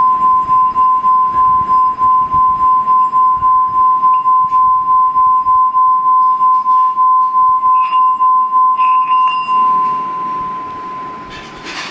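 Singing bowl rubbed around the rim with a wooden stick, giving out one loud, steady high tone that wavers about four times a second. The tone fades after about ten seconds, and a short rustle follows near the end.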